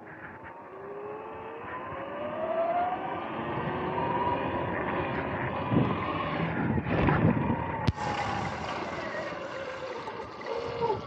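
Electric dirt bike's motor whining, rising in pitch as the bike speeds up over the first few seconds, then wavering with the throttle, over wind and rolling noise. There is a sharp click about eight seconds in.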